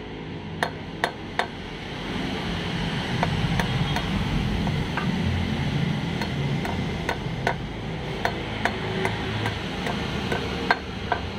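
Hammer tapping a socket used as a driver to seat a pilot bearing into the end of the crankshaft: three sharp metal taps in the first second and a half, then lighter, irregular taps through the rest. The bearing is being driven in a little at a time so it grips.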